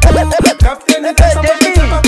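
Hip hop beat with an Afrobeat feel: punchy kick drums, deep bass notes and hi-hats under a melody line that bends up and down in pitch.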